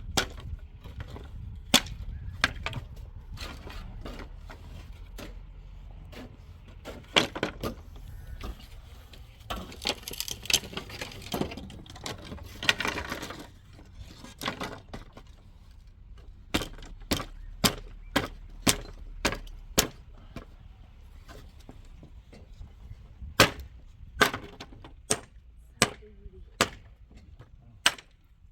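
Hand-tool strikes on building material at a house construction site: irregular sharp knocks, some single and some in quick runs, with a stretch of scraping noise about ten to thirteen seconds in.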